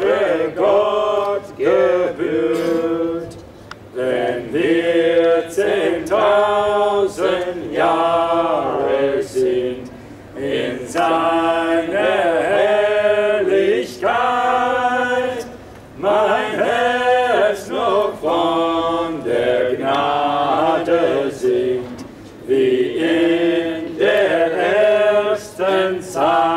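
A small mixed group of voices singing a hymn unaccompanied, in long phrases with short breaks between them.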